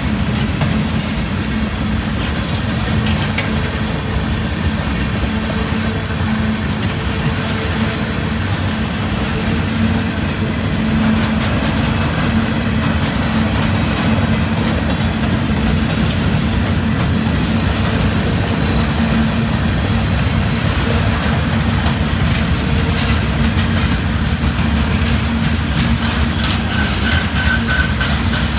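Freight cars rolling past close by: a steady rumble of steel wheels on rail with clicks and clacks from the trucks, and a brief thin high squeal near the end.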